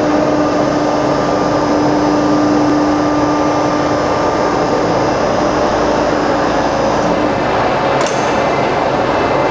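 Three-axis H-beam drilling machine running: a loud, steady mechanical noise with several held whining tones, the strongest of which fades out about seven seconds in, and a short high rising sweep about eight seconds in.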